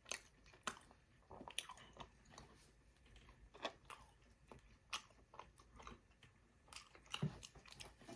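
A person chewing a battered fried chicken strip: quiet, irregular crunches and mouth clicks, a few sharper ones standing out.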